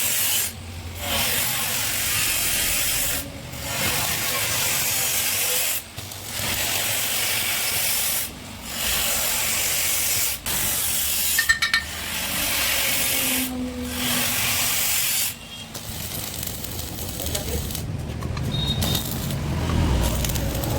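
Electric arc welding sizzling in runs of a few seconds, broken by short pauses between welds.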